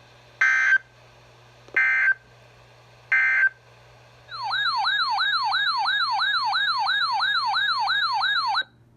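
Emergency Alert System broadcast tones: three short bursts of screeching digital data, the end-of-message signal of the warning just read, about a second and a half apart. Then a loud siren-like alert tone warbling up and down about three times a second for some four seconds, cutting off suddenly.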